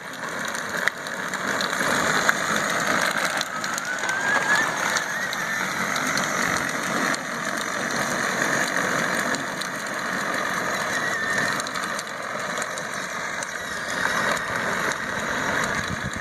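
Jeep running and being driven, a steady noisy engine and road sound, with a short rising squeal about four seconds in.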